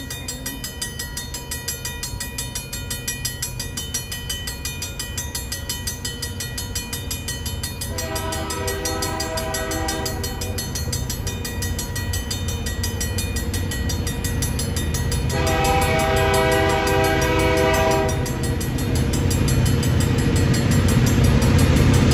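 A diesel locomotive approaches a grade crossing, its rumble growing louder, while the crossing bell rings. Its air horn sounds two long blasts, about eight and fifteen seconds in, and a third begins at the very end: the long-long opening of the standard crossing signal.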